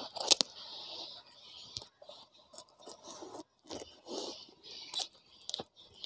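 A small blade slitting and scraping along packing tape on a cardboard box: a string of short, uneven scratchy strokes with a few sharp clicks, the loudest just after the start and several near the end.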